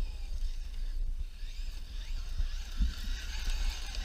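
Wind rumbling on the microphone. From about half a second in, an electric Traxxas E-Revo RC truck adds a rising hiss as it drives over gravel, loudest near the end.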